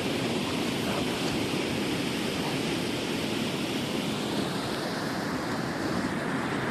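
Steady rushing noise with no distinct events, of the kind made by wind on the microphone or by flowing water.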